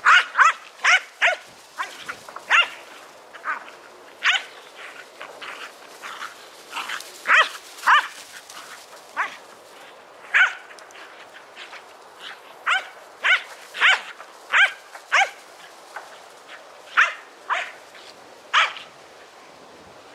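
Australian cattle dogs barking in play: short, sharp barks in uneven bursts, often two or three close together.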